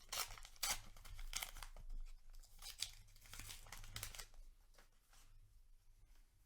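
A paper booster-pack wrapper being torn open and crinkled by hand, in a run of rustling tears that fades to lighter handling about four seconds in.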